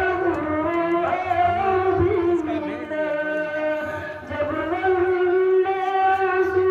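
A boy singing solo, a melodic recitation in long held notes that waver and slide from one pitch to the next.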